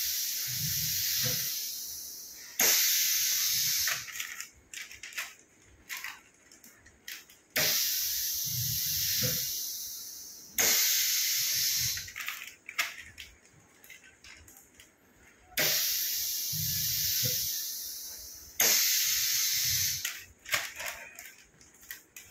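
Pneumatic bag sealing machine cycling: compressed air hisses out sharply as the cylinders close the sealing bar, then hisses again about three seconds later as the bar releases. This repeats about every eight seconds, with light clicks and rustling of foil pouches between cycles.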